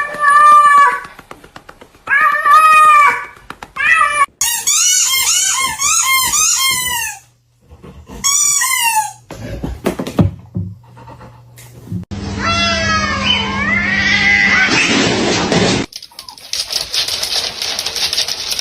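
Cats meowing across a string of short clips: a couple of single meows, then a quick run of high, wavering meows, and more meows later on. Near the end comes a steady hiss.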